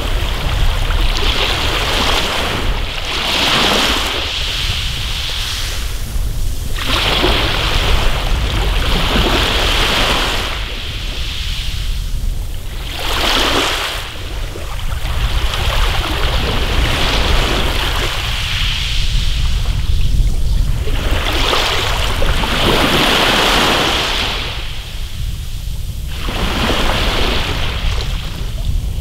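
Small sea waves washing up and draining back over a pebble beach, each hissing surge swelling and fading every few seconds over a steady low rumble.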